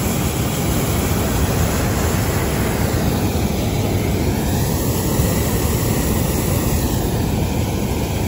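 Hot-air balloon's propane burner firing continuously overhead, a steady, loud rush of noise with no break.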